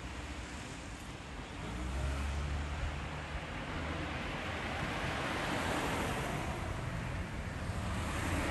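Steady rushing outdoor noise with a low rumble underneath, growing louder from about four seconds in.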